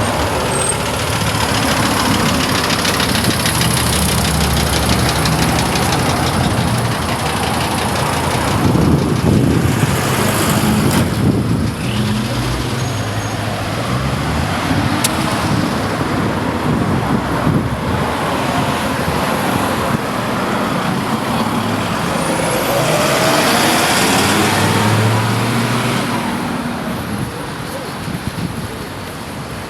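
Motor vehicle noise: engines running with steady road noise, the engine pitch shifting up and down in steps.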